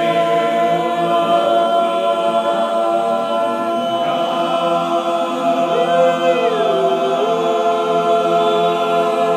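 Men's chorus singing a cappella in close harmony, holding long sustained chords while one voice part moves up and back down near the middle.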